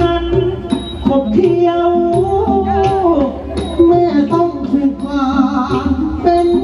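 Likay singing: a drawn-out, gliding vocal line sung into a microphone over a Thai traditional ensemble's drums, with a short high stroke keeping time about every 0.7 s.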